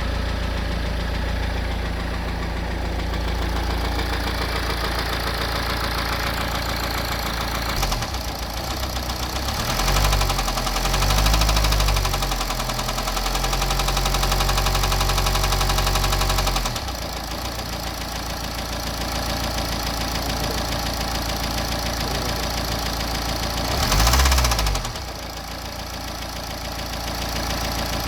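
BMW N47 2.0-litre four-cylinder diesel engine knocking as it runs at idle. It is revved up about a third of the way in and held higher for several seconds, then settles back to idle and is given one short rev near the end. The knock is from a failed bottom end.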